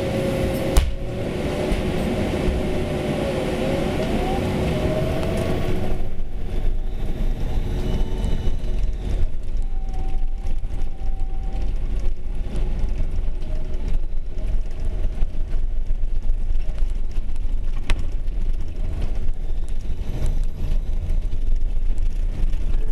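A small city bus running slowly, heard from inside. A steady low rumble comes with a whining tone that dips and then rises about four seconds in. After about six seconds the whine fades and many small knocks and rattles come through as it rolls over cobblestones.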